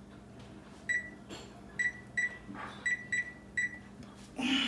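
Electric oven's touchpad beeping as the cook time is keyed in: six short high beeps at uneven intervals, after a first entry went wrong. A brief louder rustle near the end.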